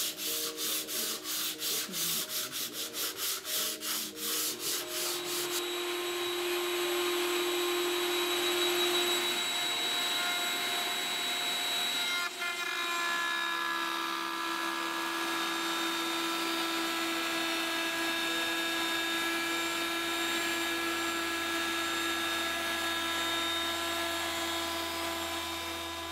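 Hand sanding with a sanding block on a wooden floor timber, quick back-and-forth strokes at about three a second, stopping about five seconds in. Then, after a break, a router table's motor runs steadily as the timber is fed past a bearing-guided bit.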